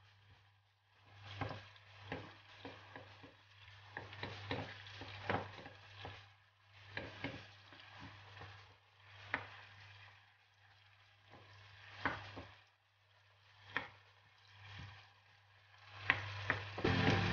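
Wooden spoon stirring and scraping diced tomato and onion sautéing in oil in a nonstick pan, in irregular strokes with short pauses and a few sharp taps on the pan, over a steady low hum. Music comes in at the very end.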